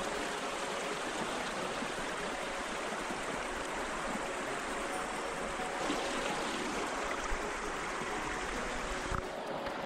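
Shallow river water rushing steadily over stones and rocks, close to the microphone.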